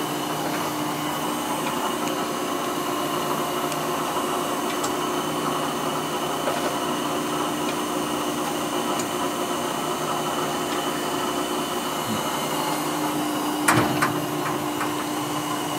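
CCI Citron surface grinder running, its motors giving a steady hum of several tones. About two seconds before the end, a single metal clank as its sheet-metal electrical cabinet door is shut.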